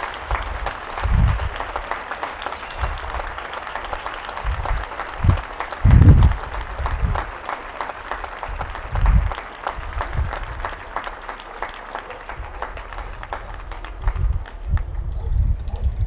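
Applause, a dense patter of many hands clapping that thins out to a few scattered claps near the end. Repeated dull low thumps are heard under it.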